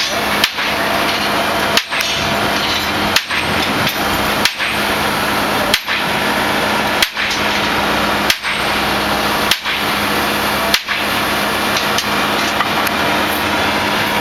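Heavy construction hammer blows at a steady beat, about one every 1.3 seconds, nine in all, stopping about eleven seconds in, over a continuous drone of running machinery.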